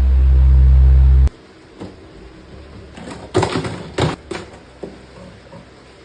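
A loud, low, steady hum that cuts off suddenly just over a second in, followed by a handful of knocks and clatters, loudest in a cluster a little past the middle.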